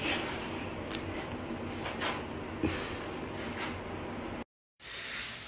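Soft rustling and handling noise in a small tiled room, with a few faint knocks. The sound cuts out briefly near the end, and then a steady hiss of running shower water begins.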